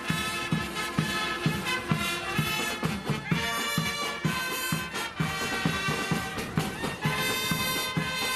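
Marching band playing a tune: brass and saxophones over a steady marching drum beat, about two beats a second.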